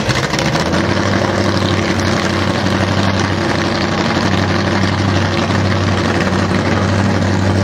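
Drag-race car engines, including a 1963 Pontiac Catalina's V8, running steadily at the starting line: a loud, even, low drone that settles onto a steady pitch about a second in.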